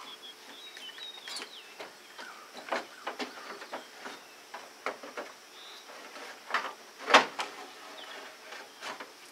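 A new radiator being lowered and set into a 1991 Ford F-150's engine bay: a run of irregular knocks, clicks and scrapes as it bumps against the shroud, brackets and lines, with the loudest knock about seven seconds in.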